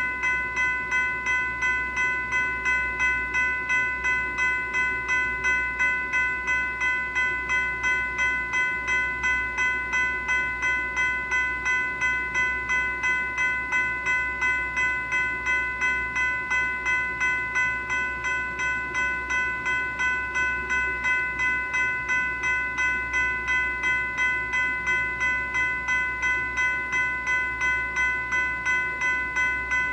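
General Signals Type 3 electronic crossing bell (E-bell) ringing continuously: an electronic ding repeating evenly about twice a second.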